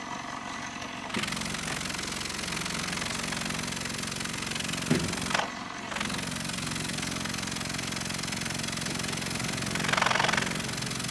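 Small 1.5-litre car engine held at raised revs, its exhaust blowing steadily out of the tailpipe. The sound thins out briefly about five seconds in, then picks up again, and there is a short louder rush near the end.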